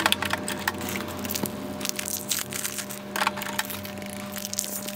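Plastic ink cartridges being pushed into the slots of an Epson C4000e colour label printer: a series of irregular plastic clicks, knocks and crackles as the cartridges are handled and seated, over a faint steady hum.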